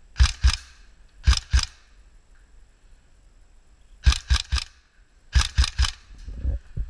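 Tokyo Marui AKS74U recoil electric airsoft gun firing single shots in quick groups: two pairs, then two runs of three, each shot short and sharp. A few softer knocks follow near the end.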